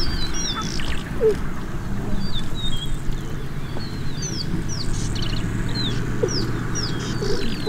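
Wild birds chirping, with many quick gliding whistles and a few short rattles, over a low steady rumble.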